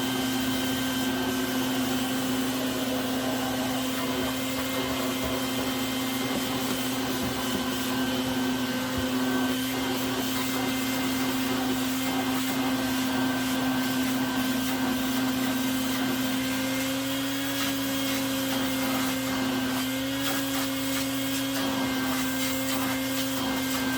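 An electric motor running steadily at one pitch, with a vacuum-like whine over rushing air, that cuts off suddenly.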